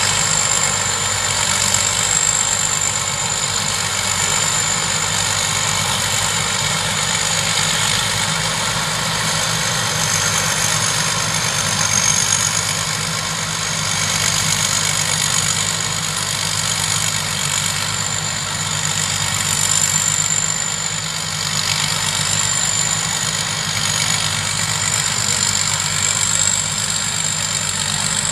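Thai Charoen Karnchang rice combine harvester running steadily: an engine drone with a high whine that drifts slightly up and down in pitch.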